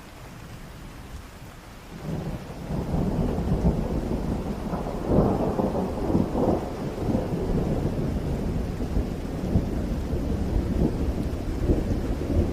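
Steady heavy rain, with a long rolling rumble of thunder that sets in about two seconds in and keeps swelling and fading, loudest about five seconds in.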